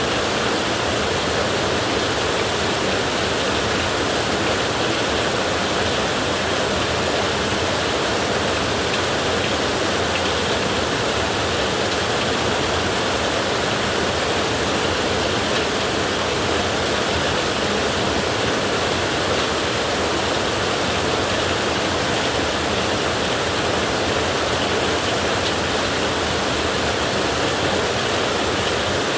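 Heavy rain falling on a tin roof: a steady, even hiss that does not let up.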